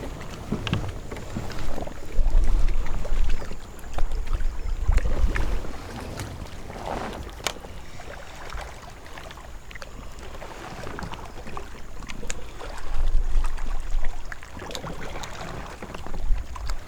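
Outdoor ambience aboard a kayak on open water: gusts of wind rumbling on the microphone come and go several times, with scattered light knocks and ticks.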